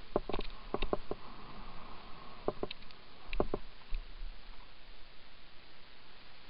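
Bike rattling and knocking as it rides fast down a rough forest trail. About a dozen sharp knocks fall in the first three and a half seconds, over steady wind and rolling noise.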